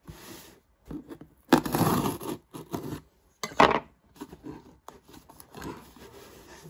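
Hands rubbing and scraping over a cardboard shipping box as it is turned and handled, with two louder scrapes, about a second and a half in and about three and a half seconds in, then quieter rubbing.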